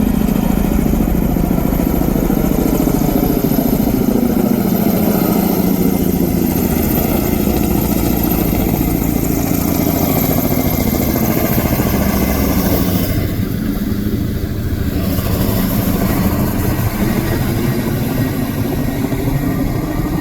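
Helicopter hovering: steady engine and rotor noise with a fast low beat, the higher part of the sound briefly dropping away about two-thirds of the way through.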